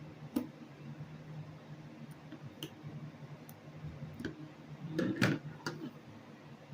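Scattered small clicks and taps of tools and hard plastic and metal laptop parts being handled during hinge disassembly, about seven in all, the loudest a quick cluster about five seconds in, over a faint steady low hum.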